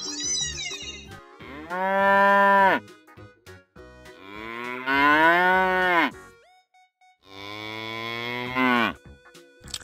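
A cow mooing three times, each call long and drawn out and falling in pitch as it ends, over faint background music.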